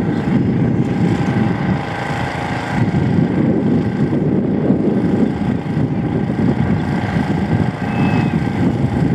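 Wind buffeting an outdoor microphone: a loud, uneven low rumble, with a faint steady hum above it.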